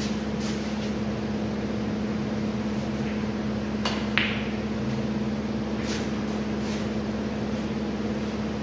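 Snooker shot: a light tap of cue tip on the cue ball, then a sharp clack of ball on ball about four seconds in, over a steady mechanical room hum. A few fainter ball clicks come before and after.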